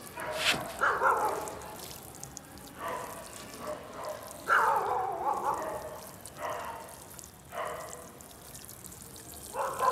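A dog giving drawn-out calls that fall and rise in pitch, three times: about a second in, around the middle, and again at the end. Under them is a soft patter of water sprinkled onto soil near the start.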